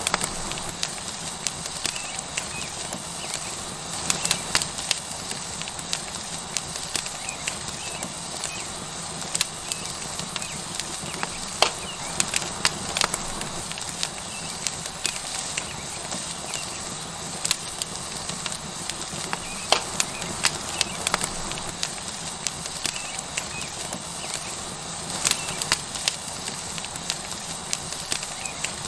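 Wood fire crackling with irregular sharp pops over a steady sizzling hiss from a tomahawk steak searing on a hot rock.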